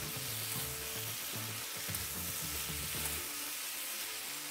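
Fried catfish pieces and sauce sizzling in a hot wok while a metal spoon stirs them through the Thai basil.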